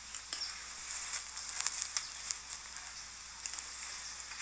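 Steady hiss with scattered crackling clicks, the background noise of a recording, with no voice in this pause.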